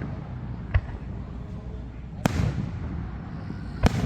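Fireworks going off: three sharp bangs about a second and a half apart over a low, steady rumble, the middle bang trailing off in a short echo.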